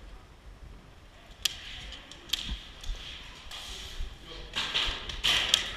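Airsoft gameplay: a few sharp single snaps of airsoft fire, about one and a half and two and a half seconds in, then rustling of gear and movement in the last couple of seconds.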